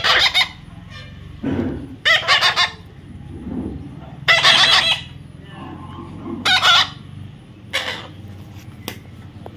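Chickens clucking and squawking in short loud bursts, about five of them, a second or two apart.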